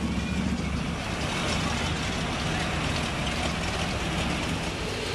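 Car engine running steadily with a low rumble.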